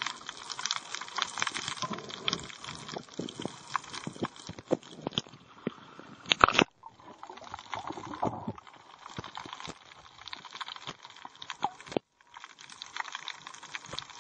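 Sea water and bubbling heard through an underwater camera, with a dense crackle of small clicks and a few louder pops.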